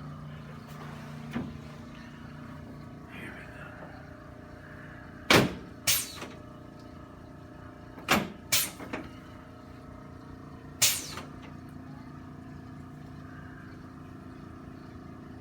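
Sharp, loud cracks from seated chiropractic adjustments: two in quick succession about five seconds in, two more about three seconds later, and a single one near eleven seconds, over a steady low room hum.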